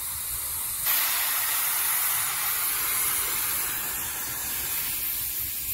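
Nitrogen hissing steadily out of a refrigerator's sealed system through the manifold gauge hoses, as the pressure-test charge is vented before vacuuming. The hiss gets louder about a second in.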